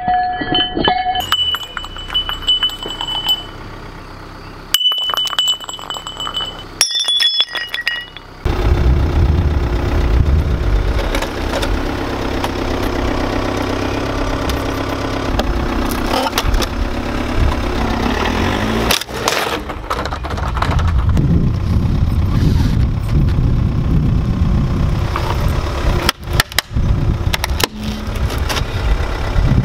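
Car engine running with a low rumble from about eight seconds in, as the car creeps onto a hoverboard. It is preceded by scattered clinks and a few short high beeps, and broken by sharp knocks near the end.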